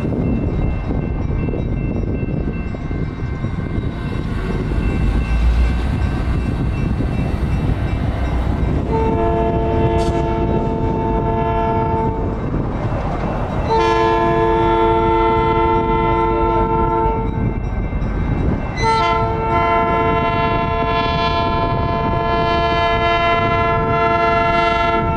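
Skunk Train locomotive sounding a multi-note chord signal in three long blasts, the first about nine seconds in and the last still going at the end, over a steady low rumble.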